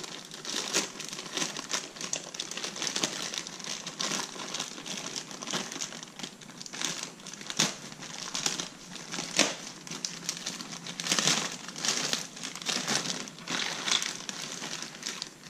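Plastic parts bag crinkling as it is handled and opened, in irregular crackly rustles.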